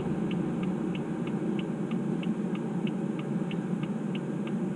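Car turn-signal indicator ticking evenly, about three ticks a second, inside the cabin of a BMW 328i whose engine has just stalled at idle, over a steady low hum.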